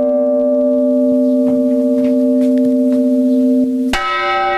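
Old church bells struck by hand with the clapper: a bell's ring from a strike just before slowly fades, and about four seconds in a bell is struck again with a sharp clang, adding a higher ring over the first.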